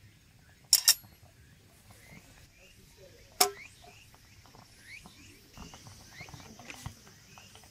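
Three sharp knocks of hard objects, two in quick succession about a second in and one more about three and a half seconds in, over faint scattered chirps and small ticks.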